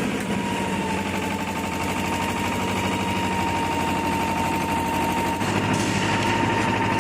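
Engine of a concrete mixer and bucket hoist running steadily with a rapid, even chugging pulse while the concrete bucket is lifted. A steady high whine sets in about half a second in, and the engine note changes about five seconds in.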